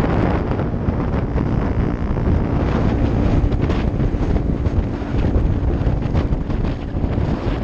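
Steady wind rushing over a helmet-mounted camera's microphone at road speed, with a Honda Grom's small single-cylinder engine running evenly under it.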